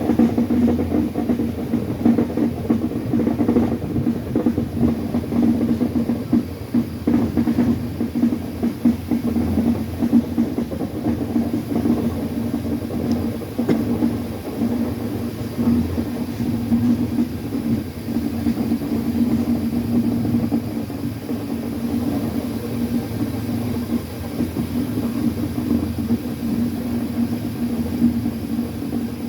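Indian Railways train running along the track: a continuous rumble with a steady low hum.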